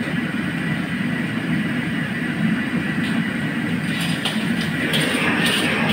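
Crabs deep-frying in a wok of bubbling oil over a gas burner: a steady rushing sizzle and burner rumble, with a few light clicks of a metal spatula against the wok from about four seconds in.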